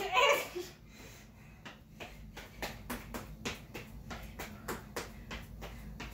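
Quick, even taps on the floor, about three a second, made while doing an exercise, starting a couple of seconds in. A brief voice sound comes right at the start.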